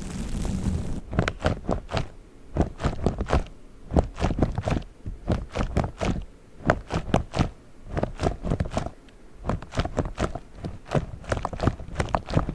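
Fingers tapping and scratching on a spiky mat, making quick clusters of sharp taps with short pauses between them. This starts about a second in, once a steady rustling noise stops.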